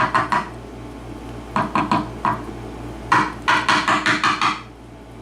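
Small metal lock cylinder knocked and tapped in three bursts of quick, sharp clicking taps, a try at freeing a pin stuck in its chamber.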